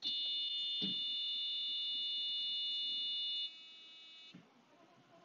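The car's dashboard warning buzzer sounds as a steady, high electronic tone as the ignition is switched on. It drops to a fainter tone after about three and a half seconds and cuts off with a click after about four, leaving only a faint hum; there is a single click about a second in.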